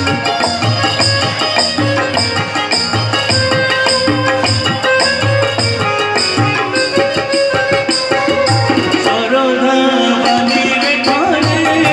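Live bhajan accompaniment: tabla playing a steady rhythmic pattern under a sustained harmonium melody. The melody becomes more active near the end.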